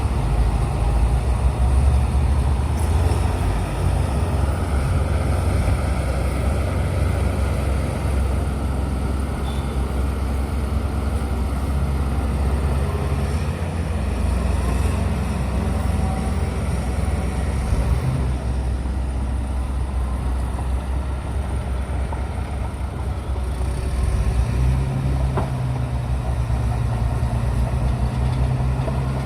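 Bulldozer's diesel engine running steadily under load; its note rises and grows a little louder near the end.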